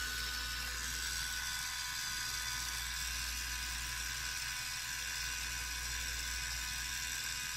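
Small 12-volt geared motor of an Add-A-Motor vertical blind controller running steadily. It turns the drive wheel until its stop foot reaches the actuator.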